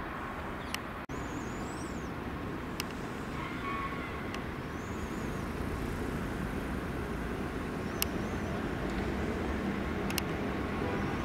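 NS Sprinter Lighttrain (SLT) electric multiple unit running along a station platform: a steady low rumble that grows a little louder toward the end, with a few sharp clicks.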